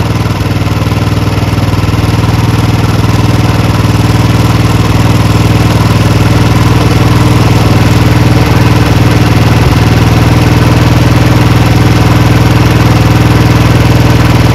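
Royal Enfield Bullet 350's single-cylinder four-stroke engine idling steadily while its carburettor adjusting screw is turned out in small steps. The idle speed creeps up slightly, growing a little louder over the first few seconds, as the mixture is tuned.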